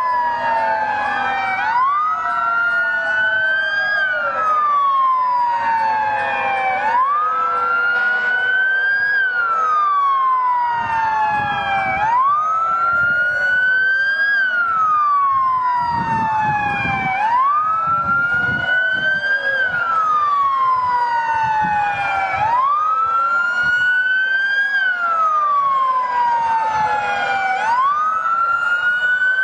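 Several emergency-vehicle sirens wailing together. The loudest one falls slowly and then rises quickly, about every two and a half seconds, with other sirens sweeping out of step with it and a low rumble partway through.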